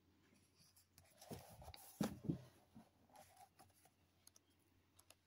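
Pages of a hardback book being turned by hand: soft paper rustling and handling noises, mostly in a short cluster between about one and two and a half seconds in, otherwise near quiet.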